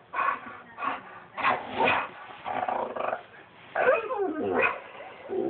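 Dog barking, growling and whining in a string of short excited bursts, some sliding down in pitch about four seconds in, worked up by animals on the TV.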